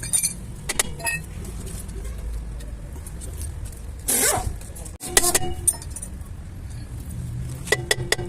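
Low steady rumble with scattered metallic clinks, a brief swish about four seconds in, and a quick run of ringing metallic taps near the end.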